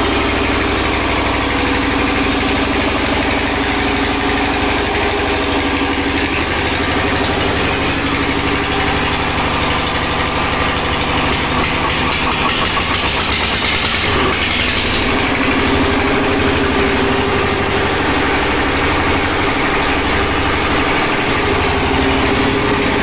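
Single-cylinder stationary diesel engine of a generator set running steadily with a fast, even knocking beat. A brief louder rush comes about two thirds of the way through.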